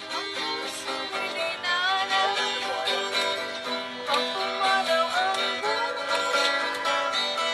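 Music led by plucked string instruments, banjo- or guitar-like, playing a lively tune throughout.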